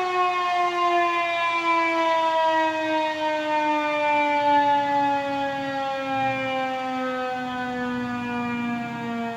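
Federal Signal 2001-130 dual-tone electromechanical outdoor warning siren winding down at the end of its alert test: its two-note chord slides steadily lower in pitch and slowly fades as the rotor slows.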